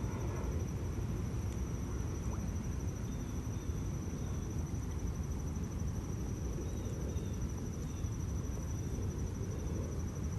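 Outdoor ambience: a steady low rumble with a continuous high-pitched whine or trill over it, and a few faint chirps.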